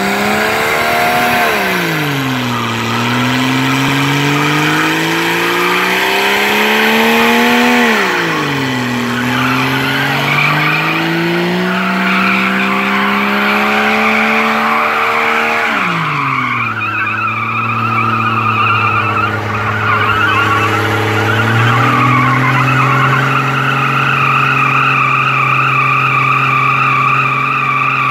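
Jeep Cherokee XJ engine revving hard through an all-wheel burnout, with its tyres spinning and squealing on the wet pad. The revs climb over several seconds and drop back three times, then are held high through the second half, where a wavering tyre squeal is strongest.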